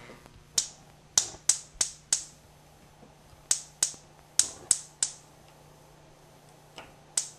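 Gas range's electric spark igniter clicking about three times a second as the burner knobs are turned on, in three runs of sharp clicks while the burners light.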